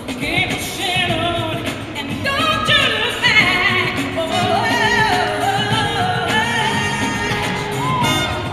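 Live gospel ensemble singing, several voices with long bending melodic lines, over instrumental accompaniment.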